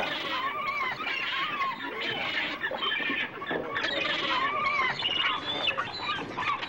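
Birds calling over and over, a busy chatter of short rising-and-falling chirps.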